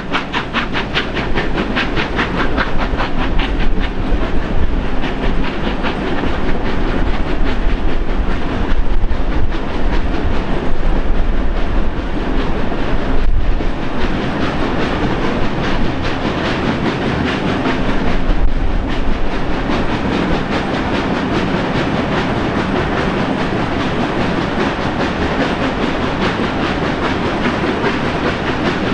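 Double-headed steam-hauled passenger train, locomotives 3016 and 3642, climbing a steep grade, heard from a carriage window: a loud, continuous din of the engines working and the wheels running on the rails. A rapid, even beat is most distinct at first.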